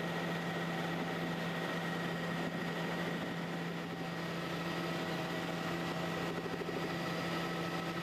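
Helicopter in flight heard from inside the cabin: steady engine and rotor noise, a constant low hum with a few steady higher whining tones over it.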